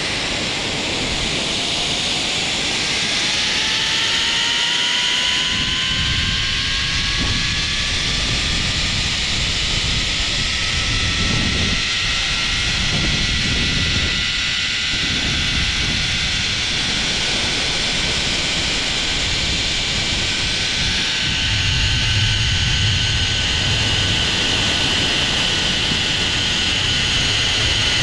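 Engine speeding up, its whine climbing in pitch over about the first ten seconds and then running steadily at high speed, with wind buffeting the microphone throughout.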